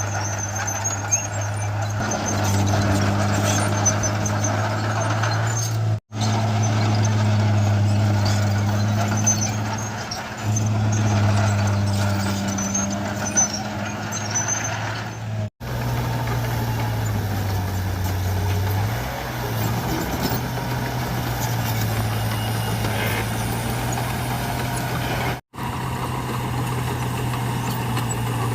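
Bulldozer's diesel engine running under load, a steady low drone that swells and eases as the blade pushes. It drops out briefly three times at edit cuts.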